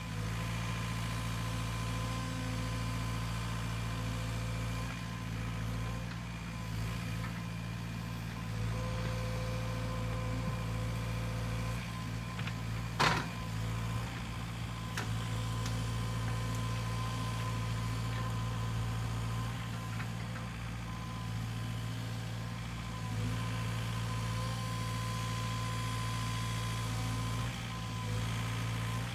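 Sany SY50U mini excavator's diesel engine running steadily as the machine works, its hum swelling and easing a little with the load, with a single sharp knock about halfway through.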